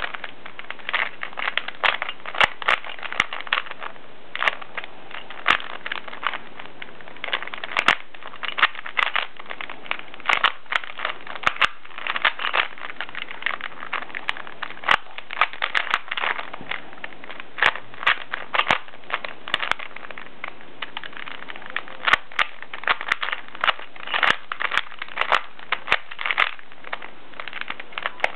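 A plastic Rubik's Cube being turned quickly by hand during a solve: irregular runs of sharp clicking and clacking from the layers snapping round, in bursts with short pauses between them.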